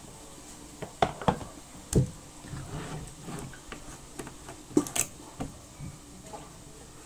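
Scattered light knocks and clinks of kitchenware being handled, about half a dozen short hits spread over several seconds.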